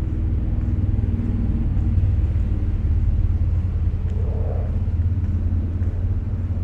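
Steady low rumble with a continuous deep hum, and a brief fainter higher hum about four seconds in.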